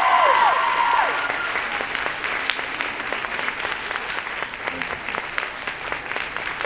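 Audience applauding. Several long, high cheers overlap at the start and die away within the first second, leaving dense clapping.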